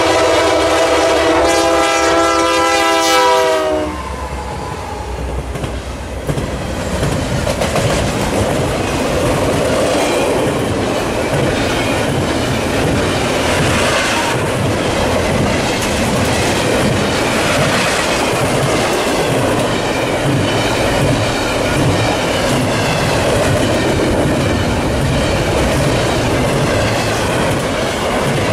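Locomotive horn sounding a steady multi-note chord, cutting off about four seconds in as the lead Union Pacific GE AC4400CW and Norfolk Southern SD60I locomotives reach the camera. A double-stack intermodal container train then rolls by at speed, its wheels clattering over the rail joints.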